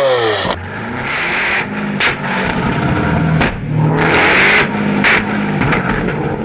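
Lamborghini Aventador LP700-4's V12, breathing through a catless, valved aftermarket exhaust, idling between short revs. Sharp cracks and pops come from the tailpipes about once a second as the exhaust spits flames.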